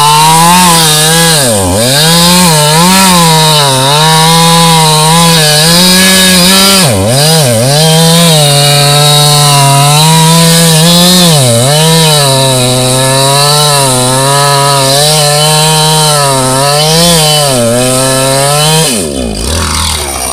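Gas chainsaw running at full throttle while cutting through a large log, its pitch dipping briefly several times as the chain bogs in the wood. Near the end the revs fall away.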